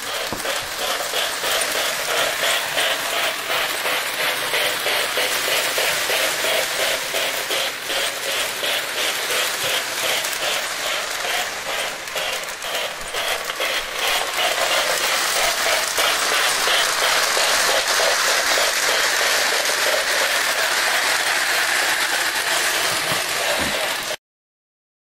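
Lionel O-gauge Hudson locomotive and its six passenger cars running on FasTrack: a steady metallic rolling rumble of wheels and motor with a fast, even clatter. It gets louder about halfway through, then cuts off suddenly near the end.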